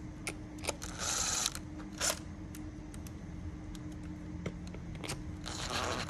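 Screws and hand tools being handled against the metal split rim of a 10-inch scooter hub motor as its screws are fitted: scattered sharp clicks and taps, with a short scraping rustle about a second in and another near the end.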